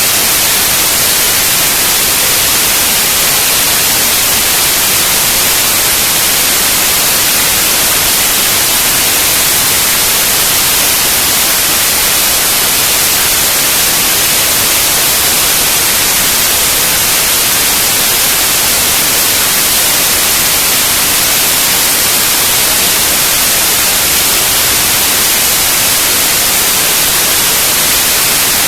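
Loud, steady hiss like static or white noise, even throughout and strongest in the high end, with no engine note or other sound standing out.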